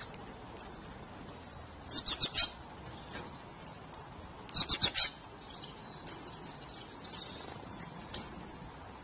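Small songbird chirping in two quick bursts of about four high notes each, the first about two seconds in and the second near five seconds, with a single chirp between them and faint calls afterwards, over a faint steady outdoor background.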